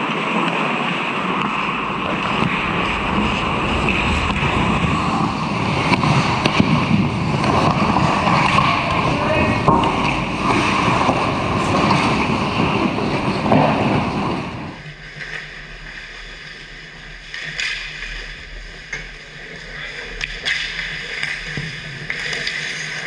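Ice hockey play around the net: a dense scraping rush of skates on ice and stick noise, which cuts off sharply about fifteen seconds in. After that the rink is quieter, with a few sharp clacks of sticks and puck.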